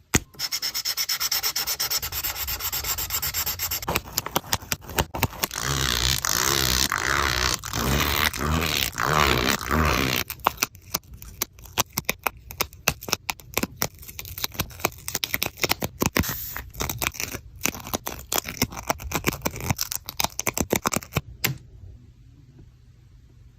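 Continuous rubbing and scraping for about ten seconds, then a fast run of short, separate scraping strokes and clicks that stops a couple of seconds before the end.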